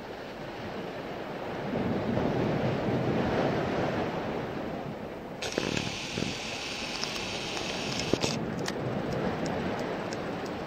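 Small waves washing on the shore under a steady rush of wind on the microphone, swelling a couple of seconds in. A higher hiss joins for about three seconds in the middle.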